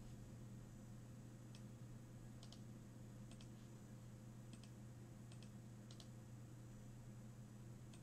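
Faint clicks of a computer mouse, about seven of them at uneven intervals, several in quick pairs, over a low steady hum.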